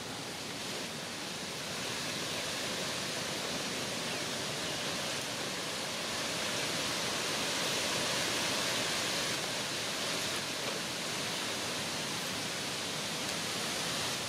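Steady outdoor hiss with no distinct events, a little louder and brighter around the middle.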